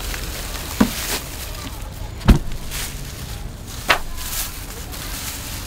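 Three dull knocks, the loudest a little past two seconds in, with crinkly plastic rustling between them: food being handled, things lifted out of a cooler and a plastic-bagged pork belly set down on a wooden slat table.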